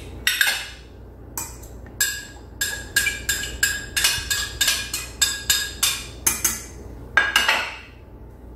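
A knife tapping repeatedly on the rim of a stainless-steel stand-mixer bowl, knocking scraped vanilla bean seeds off the blade: sharp metallic clinks, each with a short ring, about three a second for some five seconds.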